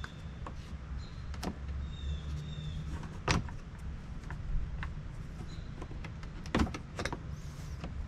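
Plastic hitch bumper trim piece being pushed into place on the rear bumper, its tabs knocking and rubbing against the bumper fascia. A few sharp plastic clicks stand out: the loudest is about three seconds in, and two more come close together near seven seconds. A low rumble runs underneath.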